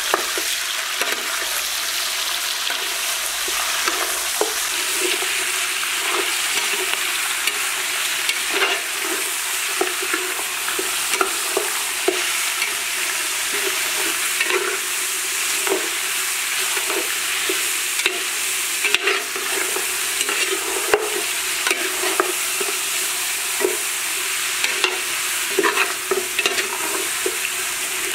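Chopped meat sizzling in hot oil and garlic in a large aluminium pot, with a steady frying hiss. A metal spatula scrapes and knocks against the pot over and over as the meat is stirred.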